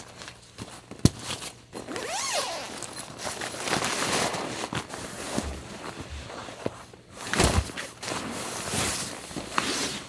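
Nylon fabric rustling and rubbing as a National Geographic self-inflating sleeping mat and a sleeping bag are handled and unrolled on a tent floor, with a sharp knock about a second in.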